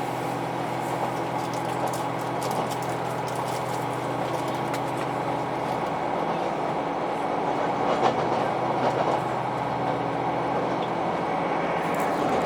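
KiHa 261 series diesel railcar heard from inside the passenger cabin: the engine drones at a steady pitch over rail noise, with a few faint wheel clicks over rail joints.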